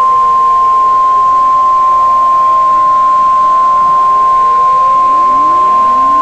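A continuous single-pitch alert tone near 1 kHz, the NOAA Weather Radio warning alarm tone that announces an emergency warning. Outdoor warning sirens rise and fall faintly underneath.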